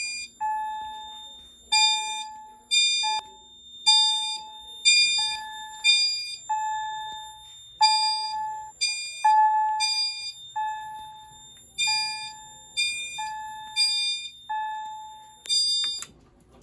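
Fire alarm chime strobes sounding in alarm, set off by a System Sensor i3 smoke detector being tested with candle smoke. Soft bell-like chime strikes, each ringing and dying away, come from several devices out of step at uneven intervals, about one or two a second. They cut off suddenly near the end.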